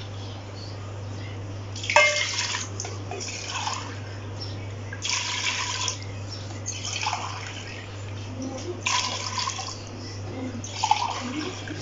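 Water poured from a plastic jug into a metal cooking pot, splashing in several separate spurts about every two seconds.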